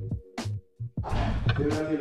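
Background music: a beat of short bass notes and sharp hi-hat-like ticks, which fills out about a second in with a voice over it.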